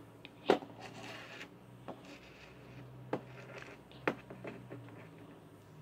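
Light taps and clicks of miniature toy pencils and plastic Littlest Pet Shop figures being set down on wooden blocks and a wooden tabletop: a handful of separate sharp taps, the loudest about half a second in, with small rubbing and shuffling between them.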